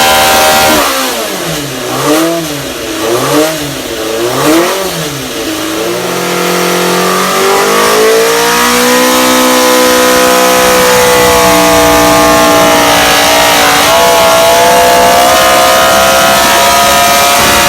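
Mugen Honda V8 Formula 3000 racing engine running on a dyno. It starts at high revs and drops back, is blipped up and down three times, then climbs smoothly and holds steady at high revs, with one brief dip late on.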